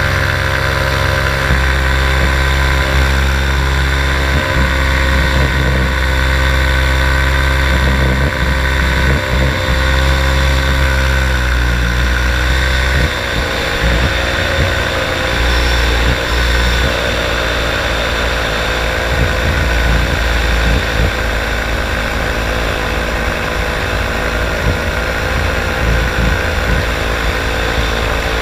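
Paramotor engine and propeller running steadily in flight. Its note drops a little about twelve seconds in and stays lower after that.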